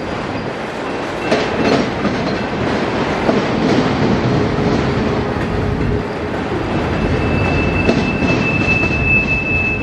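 Autorack freight cars of a CSX train rolling steadily past, wheels clacking over the rail joints. About seven seconds in, a steady high-pitched wheel squeal starts as the train works through the curved connection from the westbound B&O line to the northbound C&O line.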